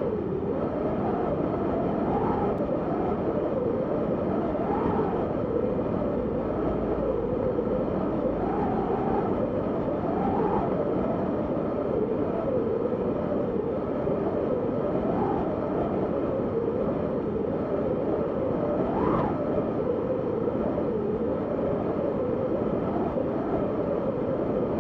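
Howling wind of a snowstorm: a steady rush with a whistling tone that wavers up and down in pitch, rising briefly in gusts every few seconds.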